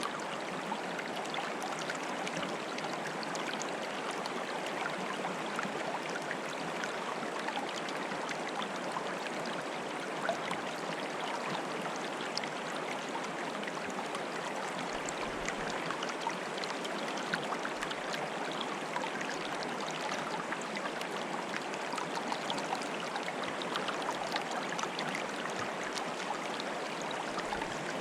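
Shallow running water bubbling and gurgling steadily, full of small splashes and pops.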